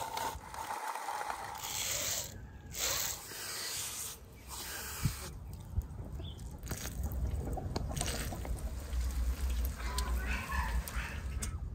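A series of short food-handling sounds: a hand-cranked rotary grater crunching bread into crumbs, then moist skin being peeled off a whole baked salmon, then aluminium foil crinkling.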